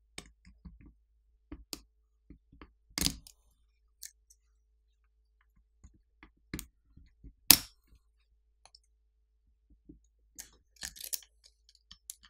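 Scattered light clicks and taps of a plastic pry pick on a smartphone's metal and plastic internals as the rear camera flex-cable connectors are pried loose. Two sharper clicks come about three seconds in and a little past halfway, and a quick run of small clicks comes near the end.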